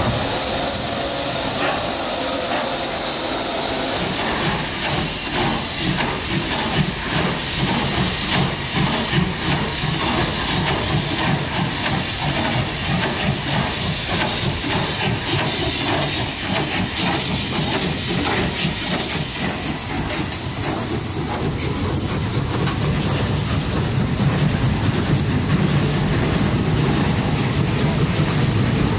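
Steam locomotive running on the line, hissing steam, with a fast rhythmic beat through the middle stretch.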